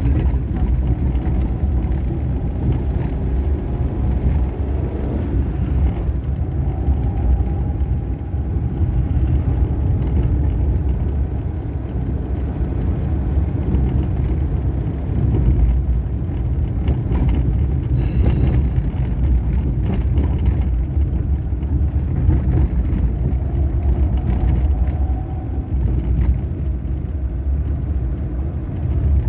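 Car interior noise while driving over a rough, potholed road: a steady low rumble of tyres and engine heard inside the cabin.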